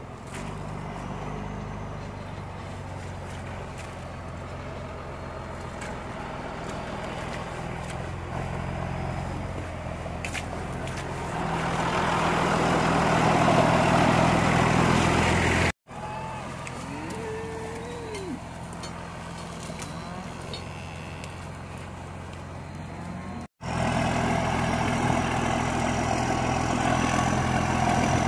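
A vehicle engine running steadily, louder for a few seconds about halfway through. The sound cuts out abruptly twice.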